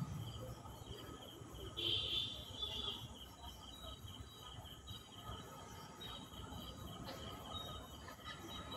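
Faint, steady insect chirping, pulsing evenly throughout, with one brief louder chirp about two seconds in.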